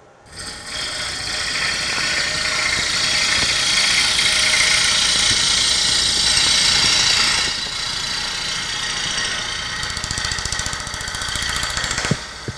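Gouge cutting the outside of a spinning Bradford pear bowl blank on a wood lathe: a steady rushing, shearing noise as shavings peel off. It eases a little about halfway through and stops near the end with a sharp click as the tool comes off the wood.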